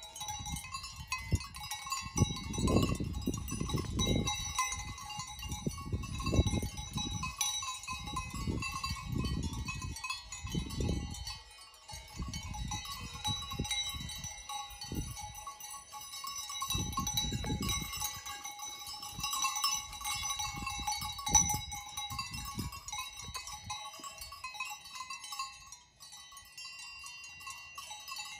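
Several bells on grazing alpine livestock ringing on and off, overlapping at different pitches, under an uneven, gusty low rumble.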